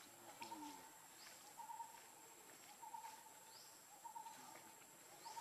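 Faint outdoor ambience: a bird repeats a short call about once every second or so, with a few quick rising chirps higher up and a thin steady insect-like whine.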